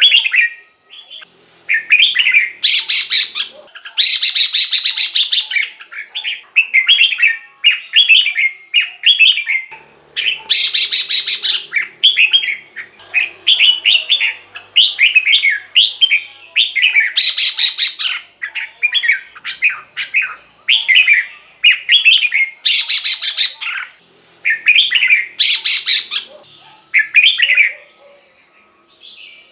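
Red-whiskered bulbul singing: short, quick phrases of bubbling whistled notes repeated one after another, with harsher, louder notes breaking in about six times. A faint steady high whine runs underneath.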